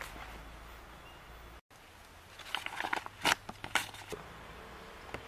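Stiff paper map being handled and unrolled, a cluster of crinkling crackles lasting about a second and a half near the middle, over faint outdoor background.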